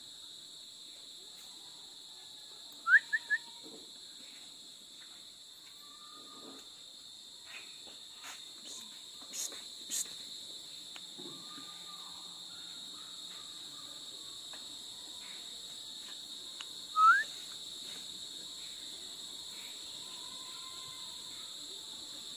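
Steady night chorus of crickets, a constant high trilling hum. Short rising whistle-like chirps cut through it: three quick ones about three seconds in and a single louder one around seventeen seconds.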